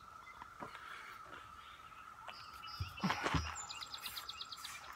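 Faint clicks and a brief knock and rustle about three seconds in as a Hatsan Escort semi-automatic shotgun is handled and shouldered. Near the end a bird trills quickly over a faint steady tone.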